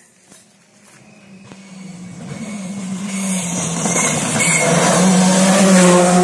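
Rally car approaching at speed, its engine running at a steady high note and growing louder over several seconds, loudest near the end.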